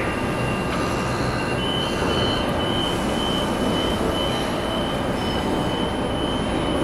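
Sydney Trains Millennium (M-set) electric train standing at the platform with a steady low hum. From about a second and a half in, a high door-closing warning beep repeats about twice a second while the doors slide shut.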